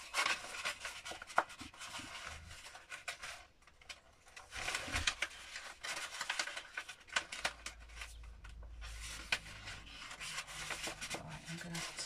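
Paper rustling and rubbing as hands curl and tuck the folded paper and envelope pages of a handmade book, with many small crinkles and a brief lull about four seconds in.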